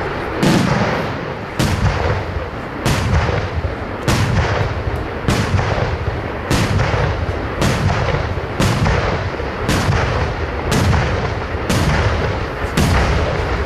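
Aerial firework shells bursting in a steady series, about one loud bang a second, each followed by a low rumble.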